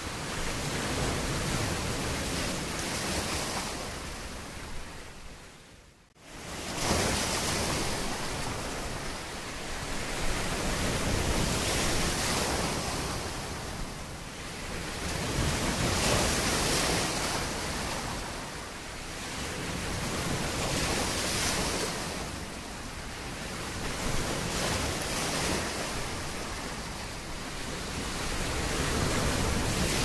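Sea waves washing in, the rush of surf swelling and easing every few seconds. About six seconds in the sound fades almost away, then cuts sharply back in.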